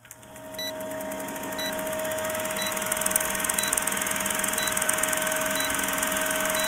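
Old film projector countdown sound effect: a steady mechanical rattle and whirr with film hiss and a constant hum, marked by a short high tick about once a second as the leader counts down.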